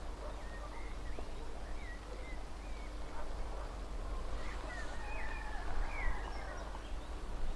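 Birds chirping and calling in short gliding notes, over a low steady rumble.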